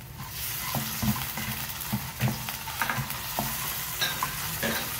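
Cubed raw chicken sizzling in hot oil in a non-stick wok, the hiss rising just after the start as the chicken goes in. A slotted spatula scrapes and knocks against the pan at irregular intervals as it stirs the pieces.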